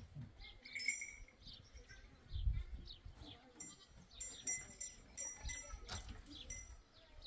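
Outdoor ambience of scattered short high chirps and animal calls, with a few low thumps; the loudest thump comes about two and a half seconds in.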